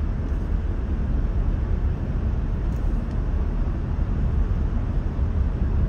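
Steady low rumble of a car driving at about 45 mph, tyre and engine noise heard from inside the cabin.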